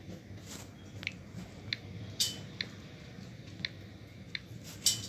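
Light clicks of typing on a smartphone's on-screen keyboard: about ten irregular taps, roughly one every half second, over a low steady background noise.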